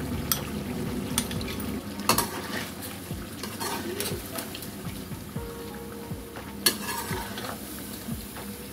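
Chicken and cream sizzling in hot oil in an aluminium karahi while a metal slotted spoon stirs and turns it. The spoon scrapes and knocks against the pan now and then, about half a dozen times.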